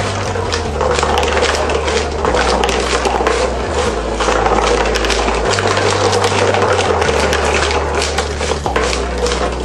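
Glass marbles clicking and rattling as a hand-cranked cardboard escalator carries them up and they roll down cardboard tracks, a quick, uneven patter of small clicks. Background music with a steady bass line plays under it.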